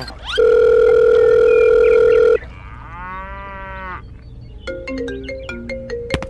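An edited sound-effect sequence. First comes a loud, flat electronic beep lasting about two seconds. About three seconds in, a short pitched sound rises and falls in a cartoonish way, and from near the end a light plucked melody of stepping notes starts.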